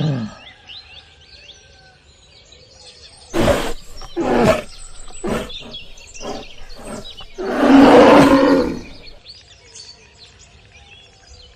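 A bear growling in bursts: a loud growl a few seconds in, several shorter ones, then a longer, louder growl past the middle. Birds chirp faintly in the background.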